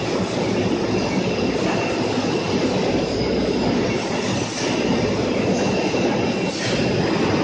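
Poultry processing line running: the overhead shackle conveyor and its machinery give a steady mechanical clatter, with a thin, high, steady whine above it.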